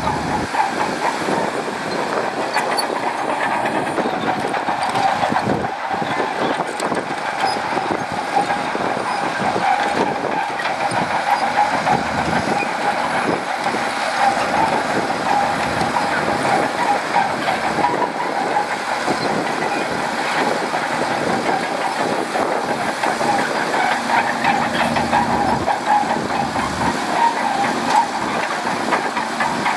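Shantui DH17C2 crawler bulldozer working: its diesel engine runs steadily under load, with the clatter and squeal of its steel tracks.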